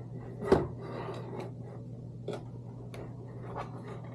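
Light clicks and knocks of 3D printer parts being handled and fitted together, with one louder knock about half a second in and a few more spaced through the rest, over a steady low hum.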